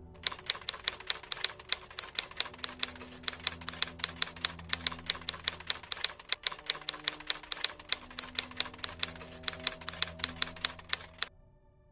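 Typewriter sound effect: a rapid run of key strikes, several a second, over a faint low drone of background music, stopping suddenly shortly before the end.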